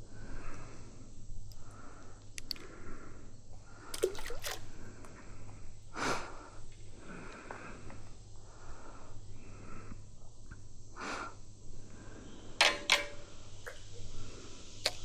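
Insects calling in an even, pulsing rhythm, with a handful of sharp clicks and knocks scattered through, the loudest two coming close together near the end.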